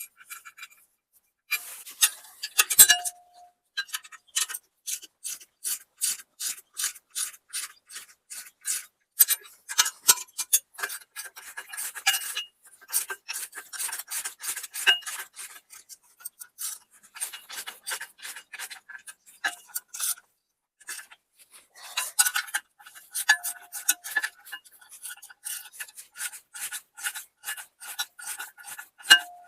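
Ratchet wrench clicking in runs of quick back-and-forth strokes, with short pauses between runs, as it tightens nylon locking hex nuts on bolted hardware.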